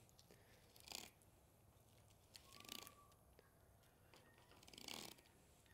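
Faint scraping of a fillet knife drawn through a blackfin tuna along its backbone, three brief strokes.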